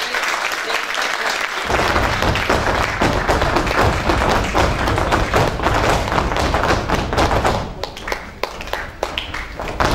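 Folk dancers' shoes stamping and tapping on the stage floor in a fast, dense rhythm: heavy stamps from about a second and a half in, turning to lighter taps near the end. Audience applause carries on at the start.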